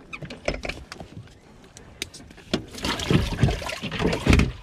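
A freshly caught largemouth bass splashing in a bass boat's livewell, with clicks and hollow knocks from the livewell hatch being handled. The splashing and knocking grow loud about three seconds in, with the heaviest knock near the end.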